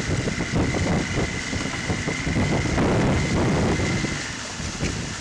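Wind buffeting the microphone and water rushing past the hull of a sailing outrigger canoe under way, a rough, uneven rumble. A thin steady high tone runs beneath it until about four seconds in.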